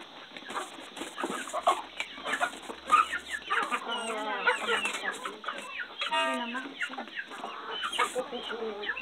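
A flock of domestic chickens clucking and calling, many short calls overlapping, with one longer drawn-out call about six seconds in.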